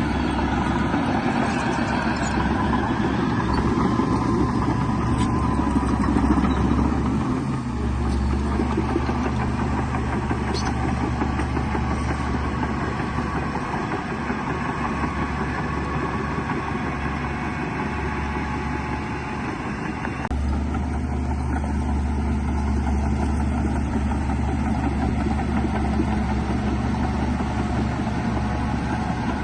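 Heavy diesel earthmoving machinery running steadily, the engine note shifting about seven seconds in and again about twenty seconds in.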